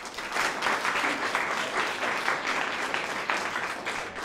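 Audience applauding: many hands clapping in a dense patter that breaks out suddenly.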